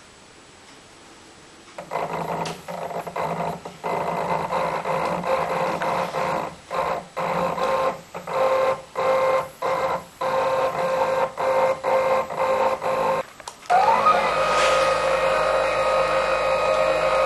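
Stepper motors of a home-built lathe whining as they drive it, starting and stopping in short runs from about two seconds in. Near the end the whine rises in pitch and the motors run on steadily.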